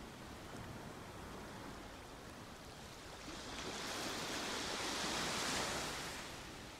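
Sea waves washing on a shore: a steady wash of surf, with one wave swelling up about halfway through and dying away near the end.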